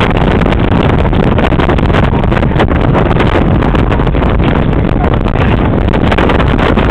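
Loud, steady wind buffeting the microphone, over the low rumble of a moving vehicle.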